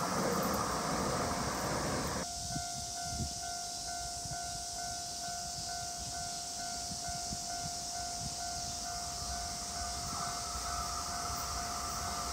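The fading rumble of a train that has just passed stops about two seconds in. Then an electronic level-crossing warning bell rings steadily, a repeating pulsed ding, warning of the next train on the line.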